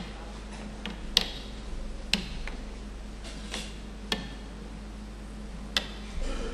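Scattered sharp clicks and knocks, about six of them at uneven intervals, over a steady low electrical hum.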